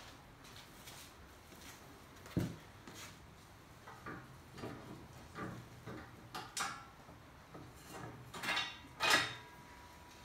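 Metal cart parts knocking and clinking as they are handled and fitted together, with a dull thump about two seconds in and the loudest clatter near the end.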